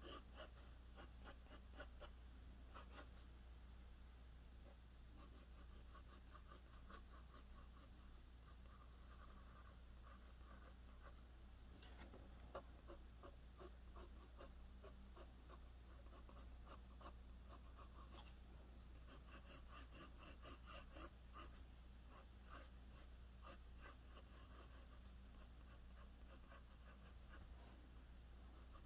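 Pencil scratching on paper in quick, short, repeated strokes that come in bursts, as strands of hair are drawn.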